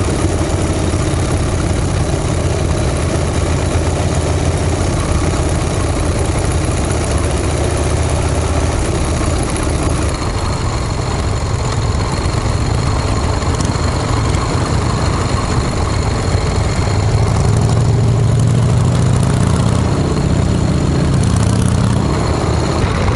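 Motorcycle engines running steadily while riding in a group of vintage Harley-Davidson V-twins, heard from the saddle of one of the bikes. The engine sound grows a little louder about three-quarters of the way through.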